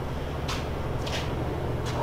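Steady low machinery hum in a large locomotive shop, with three short scuffs of footsteps on the concrete floor.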